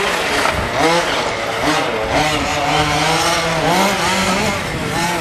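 Small two-stroke petrol engines of large-scale radio-controlled rally cars revving up and down, several engines at once, pitch rising and falling with each throttle change.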